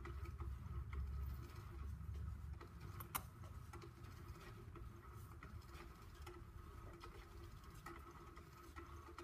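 Faint scattered taps and light scuffles from a cat playing with a toy, with one sharper click about three seconds in, over a faint steady hum.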